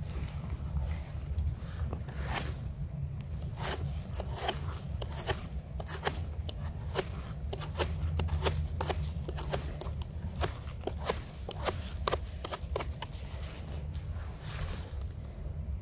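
Footsteps crunching over dry pine needles and twigs, with many irregular sharp snaps and crackles, over a steady low rumble.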